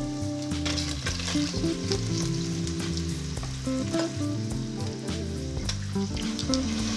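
Seared pork sizzling in a stainless steel pot as chunks of onion, potato and carrot are dropped in, with scattered knocks of vegetables landing in the pan. Near the end, water starts pouring into the pot.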